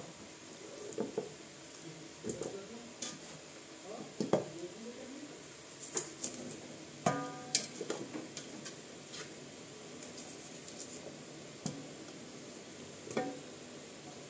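Raw whole chicken being handled with a knife in a steel pot: scattered clicks and knocks of the blade and hands against the metal, with one short metallic ring about halfway through, over a steady background hiss.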